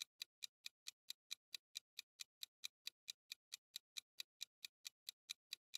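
Steady clock-tick sound effect of a quiz countdown timer: faint, evenly spaced ticks, about four to five a second.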